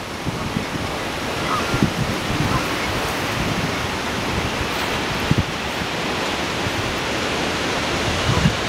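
Hurricane Sandy's storm wind blowing steadily across open floodwater, with a few low gusts buffeting the microphone.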